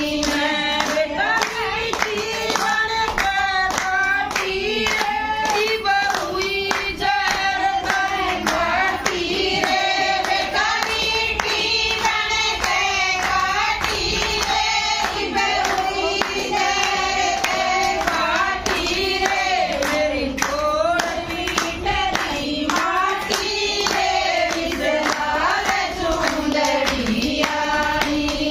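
A group of women singing a devotional song (bhajan) together, with hand claps keeping a steady beat throughout.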